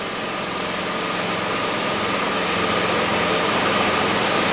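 Idling engine and the hiss of a water-electrolysis (HHO) hydrogen generator fizzing with gas bubbles, a steady noise that grows slightly louder, with a thin steady whine over it.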